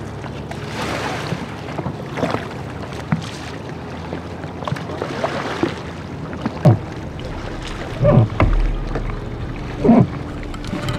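Kayak paddle strokes dipping and splashing in calm lake water, with wind on the microphone. In the second half come a few short, louder thumps, the loudest sounds here.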